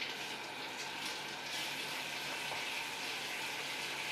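Kitchen faucet running in a steady stream over a boiled deer skull in a stainless sink, water flushing out the mashed brain matter.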